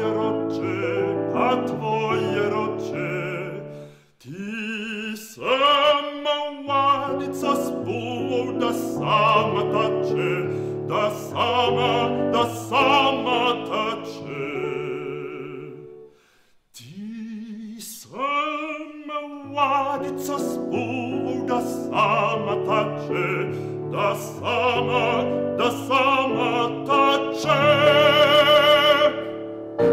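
Male classical singer singing an art song in operatic style with vibrato, accompanied on a Roland digital stage piano. Twice the music breaks off briefly and the voice comes back alone before the piano rejoins, and near the end he holds a loud high note.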